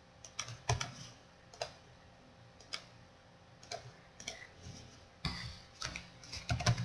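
Computer mouse clicks, single and irregular about once a second, then a busier run of clicks and taps near the end, as code is copied, windows are switched and the command window is clicked into.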